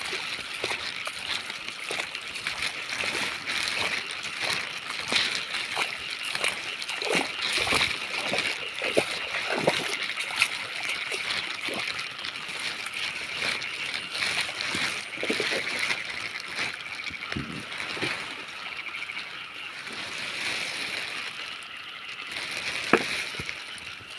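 Water splashing and sloshing in irregular strokes, over a steady high-pitched hiss.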